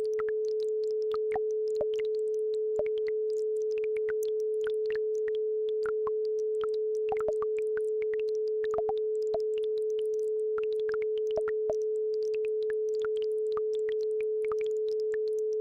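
A steady, unbroken 432 Hz pure tone, with faint scattered trickles and droplet blips of a babbling brook behind it.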